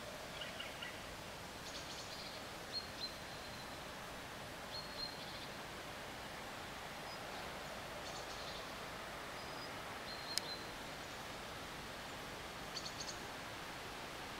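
Birds chirping in short scattered calls, about half a dozen, over a steady outdoor background hiss; one sharp click about ten seconds in.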